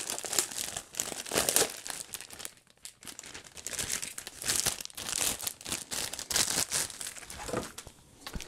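Clear plastic bag crinkling and rustling in the hands as a router is slid out of it, with a short lull about three seconds in.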